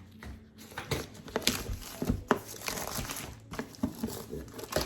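Packaging being handled during unboxing: irregular crinkling and rustling with small sharp clicks and knocks.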